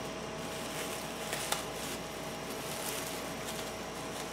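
Faint crinkling of plastic cling wrap being pressed and folded around a block of soap dough, with a few soft clicks over steady room hiss.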